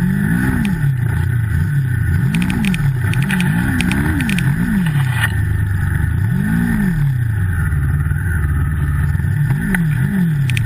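Turbocharged Yamaha snowmobile engine revving up and dropping back repeatedly, about six throttle blips with lower running between, as the sled works through deep powder snow.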